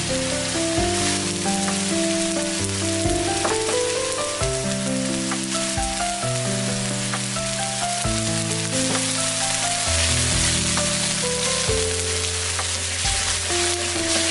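Chopped lemongrass sizzling in hot oil in a wok, with sauce dripping in from a ladle; a steady frying hiss. Background music of held melodic notes plays over it.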